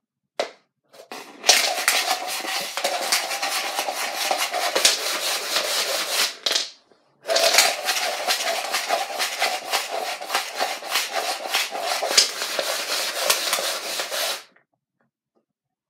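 Dice rattling inside a plastic cup as it is swirled and slid across a wooden floor for dice stacking, in two long spells of about five and seven seconds with a short pause between, after a brief clatter near the start.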